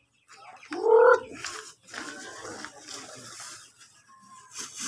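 A young chicken gives one loud squawk about a second in, followed by softer rustling and faint calls.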